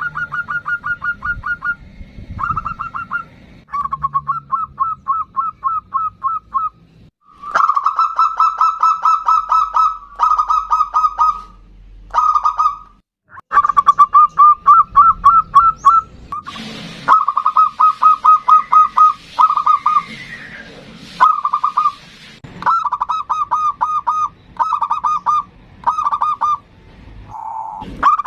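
Zebra dove (perkutut) cooing in rapid trilled phrases. There are about a dozen bursts, each a second or two long, separated by short pauses.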